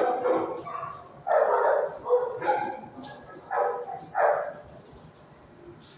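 Dogs barking in a shelter kennel: a run of loud barks over the first four seconds or so, then quieter.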